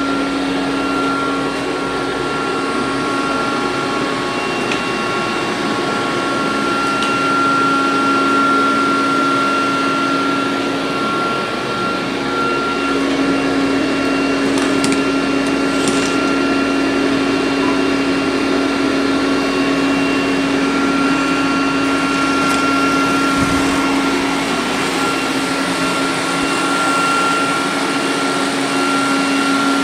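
Robot vacuum cleaner running, a steady motor hum and whine with a couple of faint clicks about halfway through.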